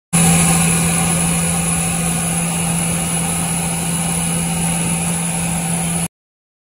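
Fishing boat's inboard diesel engine running steadily under way: a steady low hum with a thin high whine above it over a haze of noise. It stops abruptly near the end.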